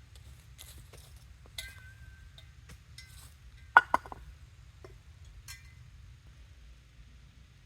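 Small clinks and knocks of hard objects being handled, the loudest a pair of sharp clinks about halfway through with a short ring, like dishes, a pot or cutlery.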